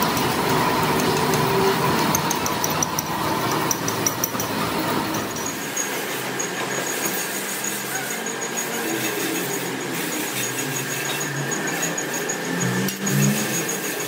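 Steady workshop machinery noise, with a brief louder knock about a second before the end.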